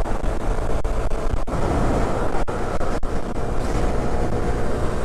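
Honda CT125's 125 cc single-cylinder engine running hard at freeway speed, near its top speed, with a steady note under loud wind rush on the microphone.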